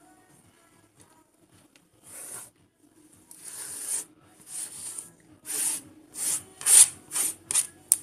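Grated carrot being scraped and brushed off a plastic cutting board: a run of rasping strokes that starts about two seconds in and comes shorter and quicker toward the end.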